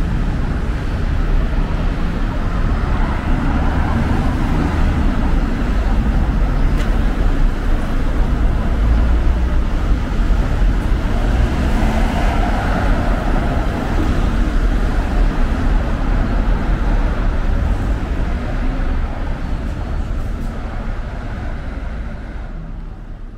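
Road traffic on a busy multi-lane city street: cars and a bus passing in a steady, loud rumble that fades out near the end.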